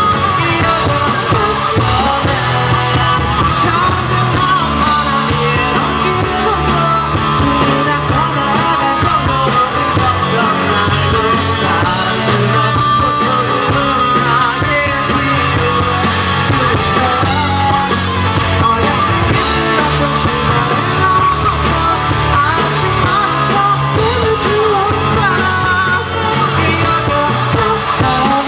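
A pop-rock band playing live with a male lead singer, heard from the audience; the singing and the full band mix carry on without a break.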